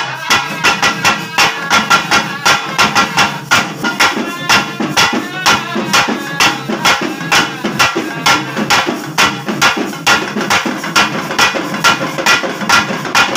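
Pambai drums beaten with sticks in a fast, steady, unbroken rhythm of about four to five strokes a second.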